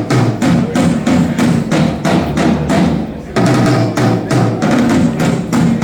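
Drum-kit toms struck one after another at an even pace, about four hits a second, as each tom is checked for the mix; a short break comes a little past halfway before the hits resume.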